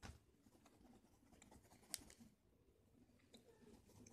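Near silence with faint scratching of colouring on paper, and a light tick about two seconds in.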